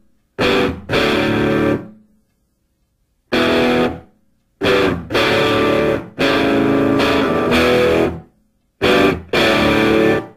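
Background music: distorted electric guitar played in short stop-start phrases, each cut off cleanly by a full silence, the longest about a second and a half, a couple of seconds in.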